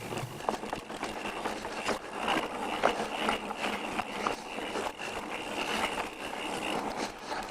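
Pivot Switchblade mountain bike descending a rough dirt trail: tyres rolling and scraping over the ground, with scattered rattles and knocks from the bike bouncing over bumps and a faint steady high-pitched tone through most of it.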